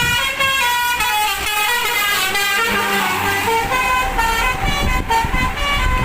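Bus telolet horn, a multi-tone musical air horn, playing a quick tune of short notes that step up and down in pitch, over the rumble of the passing bus.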